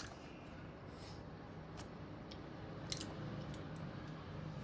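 Soft bread roll being torn open by hand, faint, with a few light crackles as it pulls apart.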